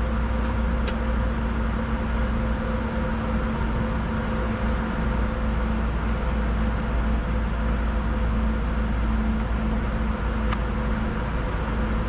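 Steady flight-deck noise of a Bombardier Challenger 605 in flight: a constant rush of airflow and engine hum, with a few steady tones running under it.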